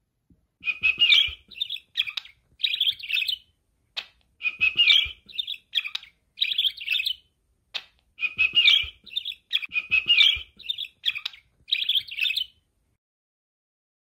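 Budgerigar chirping in a string of short, bright phrases, each about half a second to a second long, with brief gaps between them.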